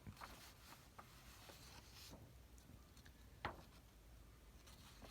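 Near silence: quiet room tone with a few faint scattered clicks and taps, one sharper click about three and a half seconds in.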